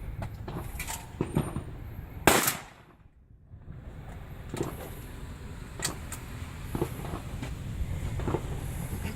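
A single shotgun shot about two seconds in, sharp and loud, over steady outdoor background noise with a few small clicks.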